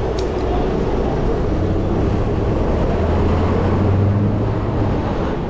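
Wind rushing over the camera microphone on a moving bicycle, mixed with road traffic. A low vehicle engine hum comes in about a second and a half in and cuts off shortly before the end.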